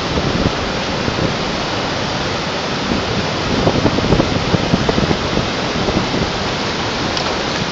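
Rushing river water, a steady noise of current over rocks, with a few brief louder splashes about halfway through as a gaffed salmon is lifted out of the water.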